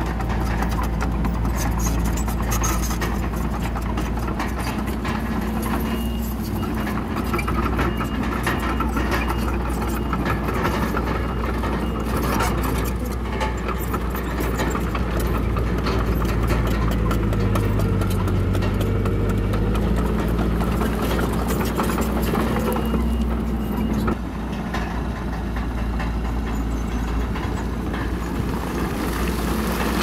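Komatsu D31PX crawler bulldozer's diesel engine running under load, with steel tracks clanking and broken stone scraping and crunching as the blade pushes into the rubble. The engine note dips and recovers about two-thirds of the way through.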